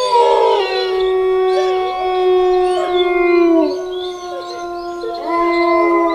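Several wolves howling together, long held howls overlapping at different pitches. Some slide down in pitch at their ends, and a new howl rises in about five seconds in.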